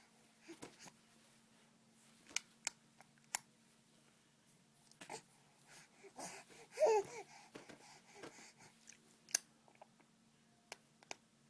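A baby making mouth noises: scattered small clicks and smacks with soft breathy sounds, and one short vocal squeak about seven seconds in.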